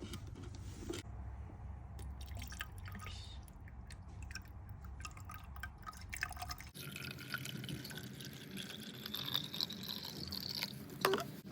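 Water trickling and dripping into a robot vacuum's small plastic water tank, with a pitch that slowly rises as the tank fills, from about two-thirds of the way in; a few light plastic clicks near the end.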